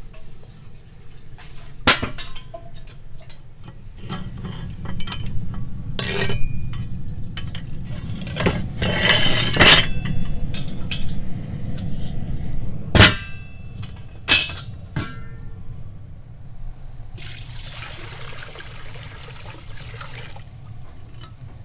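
Metal clanks and knocks of cast-iron stove-top ring lids and a cast-iron kazan being handled on a wood-fired stove, with a dense clatter around nine to ten seconds in and single sharp clanks a few seconds later. Near the end comes an even rush of water poured into the cast-iron kazan for about three seconds.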